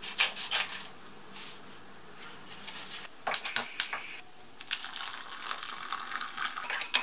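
Scissors snipping open a foil soup sachet, then a few sharp clicks and taps, then hot water poured from an enamel saucepan into a ceramic mug, a steady splashing pour starting about two thirds of the way in.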